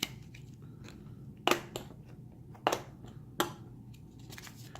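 Hard plastic airtite coin capsules clicking as they are handled and pried open, four sharp clicks spread over the few seconds.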